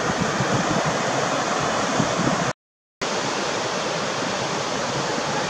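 Steady rush of sea surf on the beach. About two and a half seconds in, it cuts out completely for half a second.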